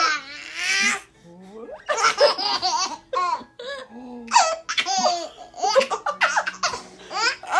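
An infant laughing in repeated bursts, with a woman laughing along.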